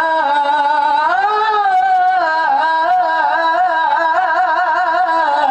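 A man's voice reciting the Quran in melodic mujawwad tilawah style. He draws out a word in one long melismatic phrase: the pitch rises about a second in, then he adds quick wavering ornaments. The phrase cuts off suddenly near the end.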